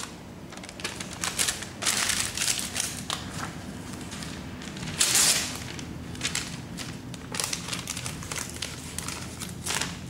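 A glossy magazine sheet crinkling and rustling as it is pressed into wet spray paint and peeled back up to make a rock texture, in several bursts, the loudest about five seconds in.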